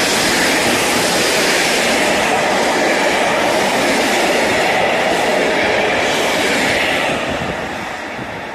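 Freight train of container and tank-container wagons rolling past close by: steady, loud wheel-and-rail noise that starts to fade about seven seconds in as the last wagon goes by.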